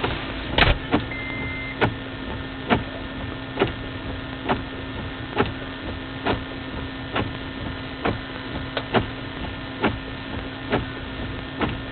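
Steady electrical hum inside a stopped car, with a sharp tick about once a second, evenly spaced, while the windscreen wipers are running.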